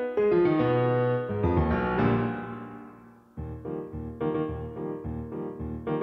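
Keyboard music: a run of notes settles into a held chord that fades away about three seconds in, then a new passage of evenly repeating notes starts, about three a second.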